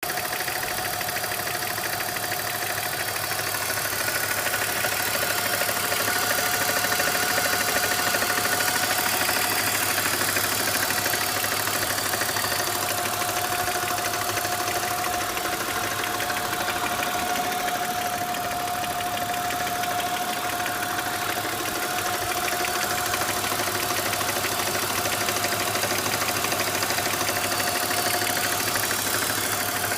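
BMW E46 330Ci's M54 3.0-litre straight-six idling steadily, with an odd clicking and a steady high whine over it. The clicking appeared after the intake hoses were replaced and the idle control valve and DISA valve were cleaned.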